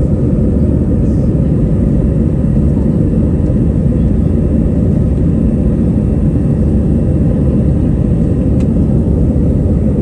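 Airbus A321 airliner in its climb after takeoff, heard inside the passenger cabin: a loud, steady, deep rumble of engine and airflow noise that holds even throughout.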